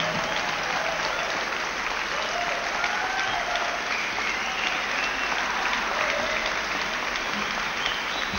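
Live audience applauding steadily at the end of a song, with a few voices calling out over the clapping.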